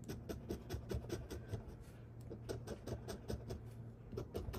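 A coin scraping the coating off a lottery scratch-off ticket in quick back-and-forth strokes, about six a second, with a brief pause about two seconds in.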